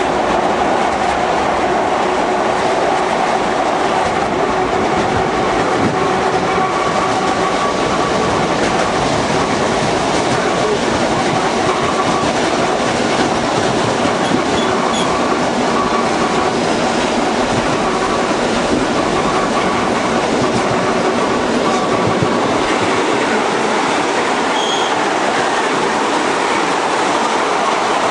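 ER2T electric multiple unit running at speed, heard from inside the carriage: a steady rumble and rattle of wheels on the track, with faint steady whining tones above it.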